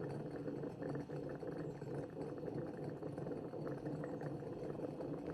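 Water boiling in the boiler of a Belgian balance siphon coffee maker, a steady bubbling as steam pressure pushes the hot water over through the tube into the glass coffee chamber.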